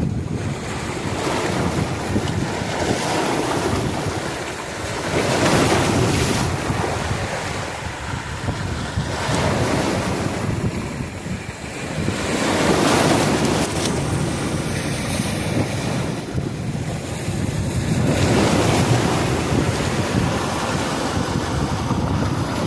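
Ocean waves breaking and washing in, the surf swelling and falling away every few seconds.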